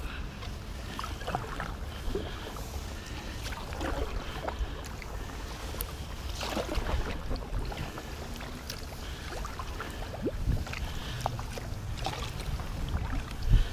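Kayak paddle strokes: the blades dip into calm water with splashes and drips about every two to three seconds, over a low rumble of wind on the microphone.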